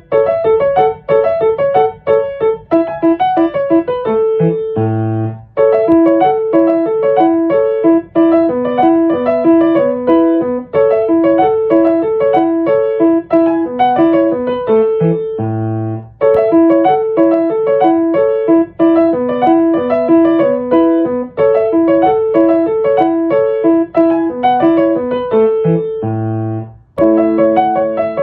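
Background music: a piano playing a light melody of quick notes, with the phrase ending on a held low note and a brief pause about every ten seconds.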